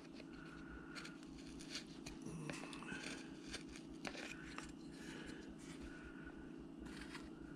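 Carving knife slicing small cuts into a wooden carving, faint scattered scrapes and clicks as the blade bites and pares wood, over a steady low hum.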